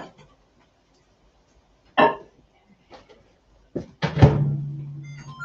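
Knocks and a loud clunk as a dish goes into a microwave oven and its door is shut. The microwave then starts running with a steady low hum, and a few short beeps come near the end.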